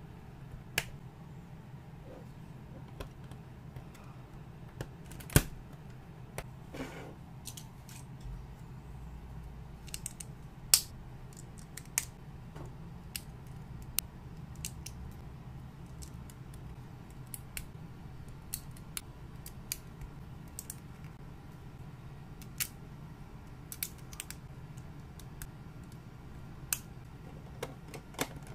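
Plastic building bricks clicking and snapping together as they are pressed on by hand: irregular sharp clicks, a few much louder than the rest, over a faint steady low hum.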